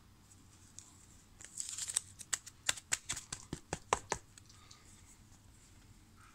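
Plastic trading-card packaging crinkling and tearing in the hands: a quick run of crackles and sharp clicks that starts about a second and a half in and lasts about two and a half seconds.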